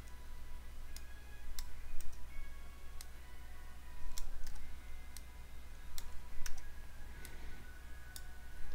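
Computer mouse and keyboard clicks while modelling on a computer: sharp single clicks at an uneven pace, about one or two a second, over a faint steady hum.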